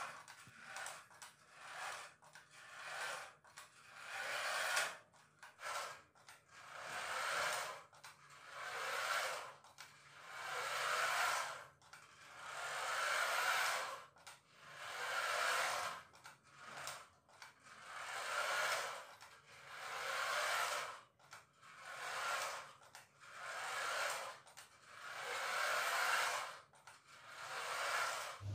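Toy remote-control car's small electric motor and gears whirring in repeated spurts as it drives, each swell rising and falling over a second or two with brief dips between.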